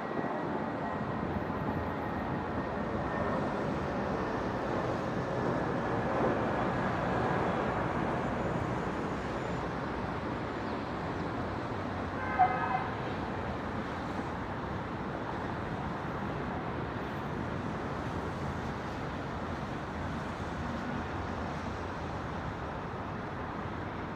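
Steady hum of distant city traffic, with one short vehicle horn toot about halfway through.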